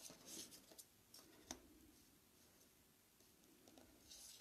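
Near silence broken by a few faint clicks and light taps of handling, spaced irregularly through the first second and a half.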